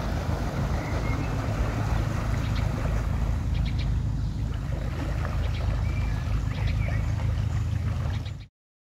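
Narrowboat's Beta Marine 43 diesel engine running steadily as the boat cruises, with a few birds chirping. The sound cuts off abruptly near the end.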